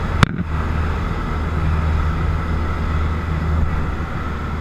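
Light touring aircraft's engine droning steadily, heard from inside the cabin, with the rush of air over the airframe; a single sharp click about a quarter second in.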